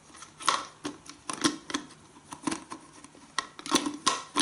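Irregular small plastic clicks and knocks from the filter and housing parts of a SERVOMASTER cordless handheld vacuum being handled and fitted back together.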